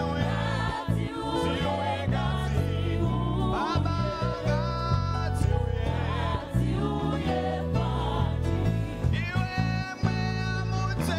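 Gospel song: a group of voices singing together over instrumental backing with a steady bass line.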